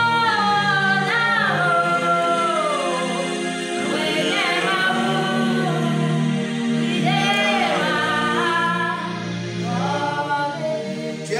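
Voices singing a slow gospel worship song, with long held notes that slide from one pitch to the next over a steady low drone.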